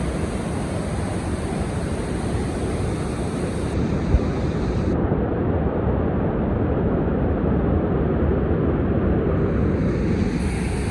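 Steady rushing noise of a fast, rocky mountain river in white water, mixed with wind buffeting the microphone.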